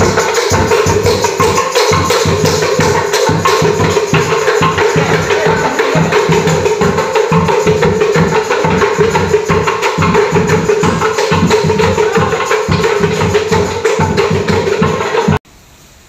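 Percussion of a sahur wake-up patrol: drums and wooden slit drums (kentongan) beaten in a fast, even beat. It cuts off suddenly near the end.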